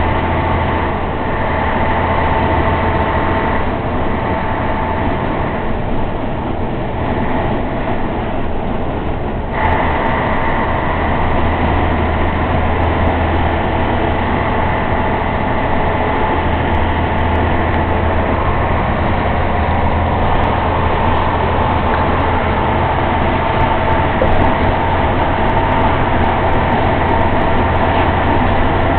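Heavy truck's diesel engine and road noise heard from inside the cab while cruising at motorway speed: a steady low drone with a higher whine over it. About nine and a half seconds in, the higher part of the sound suddenly grows louder.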